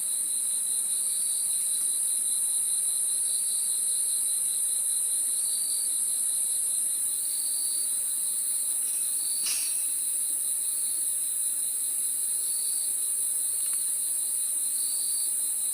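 Insect chorus in the jungle: a steady, high-pitched shrill drone over a lower pulsing trill, with a short chirp repeating about every two seconds. A single brief click about nine and a half seconds in.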